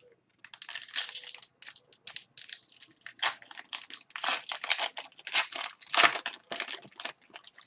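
Crinkling and tearing of a trading-card pack wrapper, a busy run of irregular crackling rustles.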